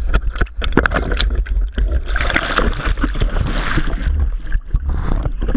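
Seawater sloshing and gurgling around a pole-mounted camera as it is dipped into and lifted out of the sea, with many sharp clicks and knocks and a low rumble. A louder rush of water hiss comes in about two seconds in and fades a couple of seconds later.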